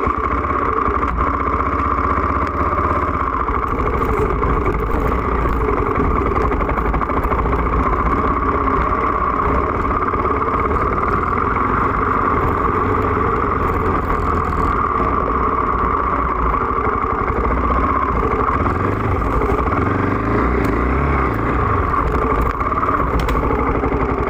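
KTM off-road dirt bike engine running steadily, heard close up from a phone camera mounted on the bike's handlebars as it rides slowly along a forest trail.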